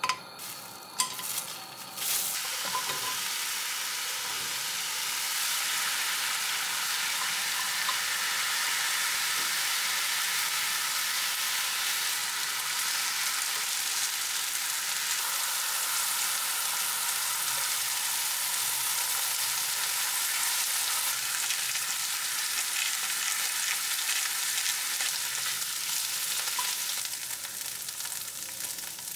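Thin slices of beef (eye of round) sizzling steadily as they fry in a nonstick frying pan with chopped onion. A few light knocks come first, then the sizzle starts suddenly about two seconds in and eases a little near the end.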